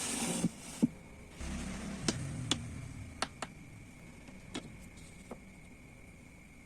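Light knocks and clicks of wood and hand tools being handled, about seven sharp taps spread over several seconds, with a brief scraping rumble early on and a faint steady high whine underneath.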